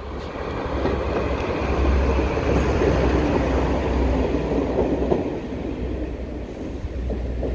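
A first-generation single-car diesel railcar passing close by at low speed: underfloor diesel engine running with a deep rumble, and wheels on the track. It builds about a second in, is loudest through the middle, then eases off as the railcar moves away.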